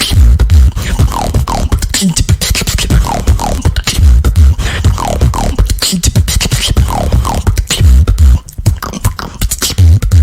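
A female beatboxer performs a fast routine of deep bass kicks, sharp clicks and snares, and repeated falling pitched sounds, with the lip rolls that mark her style.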